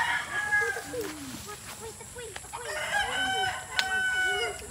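Roosters crowing: one crow ending about a second in and a longer, held crow about three seconds in, with softer clucking calls in between.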